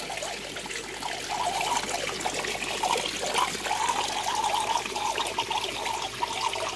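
Water trickling and splashing steadily in a pump-fed recirculating tank for holding tubifex worms, where the returning water falls onto the worm tank and drains away.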